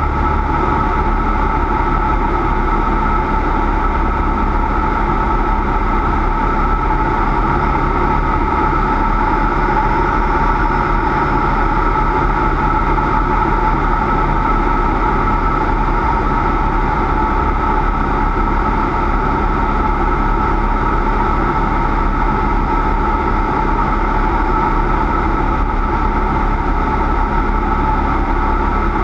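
Cessna 172's piston engine and propeller droning steadily at constant power, with no change in pitch.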